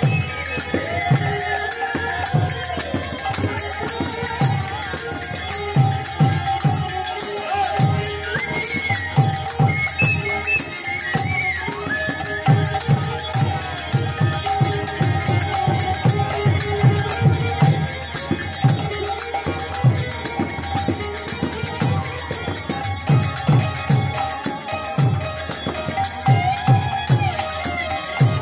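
Bengali kirtan music: a khol drum beats a steady rhythm under continuous ringing of kartal hand cymbals, with held melodic tones above.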